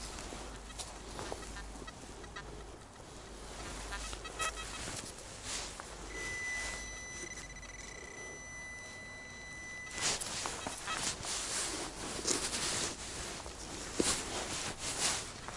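XP Deus metal detector sounding short signal chirps, then one steady electronic tone for about four seconds in the middle, the detector signalling a target. After the tone stops come short knocks and rustles of soil and leaves being dug and handled.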